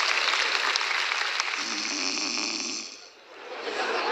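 A woman snoring theatrically for comic effect: long rasping snores with a wavering voiced rumble, broken by a brief pause for breath about three seconds in.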